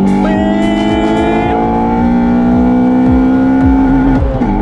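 Honda Civic Type R EP3's 2.0-litre i-VTEC four-cylinder, breathing through a carbon intake airbox and a 70 mm cat-back exhaust, accelerating hard at high revs, heard from inside the cabin. The engine note rises steadily, then drops sharply about four seconds in at an upshift.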